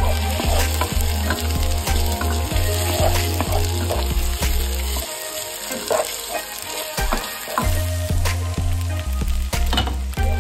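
Onions, tomatoes and grated corn sizzling in a hot pan while a wooden spatula stirs and scrapes through them, with many short scraping clicks. Background music with a low bass runs underneath and drops out for a couple of seconds around the middle.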